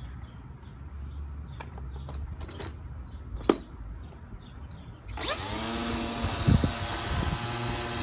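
Electric string trimmer fitted with a wheeled mowing deck: a few handling clicks and one sharp click about three and a half seconds in, then about five seconds in its motor spins up to a steady whine, with a couple of thumps as it starts cutting grass.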